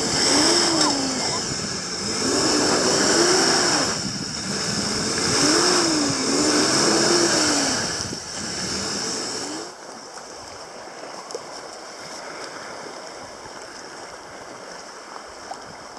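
A stuck van's engine revving up and falling back several times as it strains to climb out of a muddy bank. About ten seconds in it cuts to a quieter steady wash of lake water and wind.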